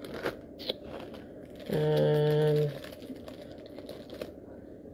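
Light clicks and rustling from jewelry and boxes being handled, with a steady low hum lasting about a second midway.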